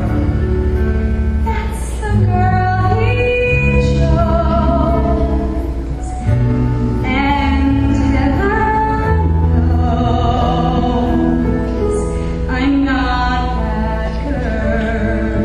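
A woman's solo voice singing a slow musical-theatre ballad, with long held notes and vibrato, over sustained instrumental accompaniment.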